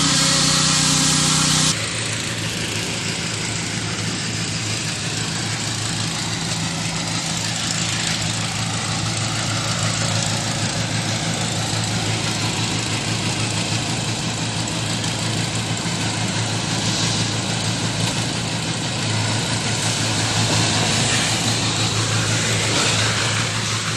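Engine of a concrete mixer pump running steadily with a low, even hum. The sound changes abruptly about two seconds in.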